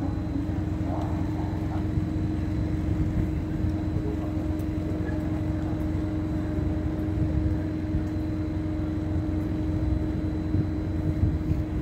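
Steady electric hum from a standing transN electric multiple unit, its on-board equipment giving one constant tone over a low rumble.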